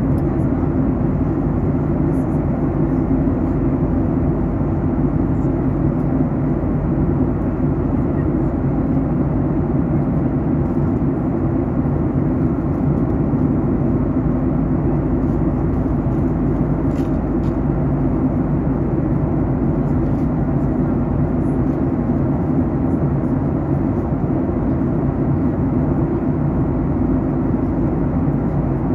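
Cabin noise inside a Boeing 737 MAX 8 airliner during descent: a loud, steady, low rumble of airflow and engine drone.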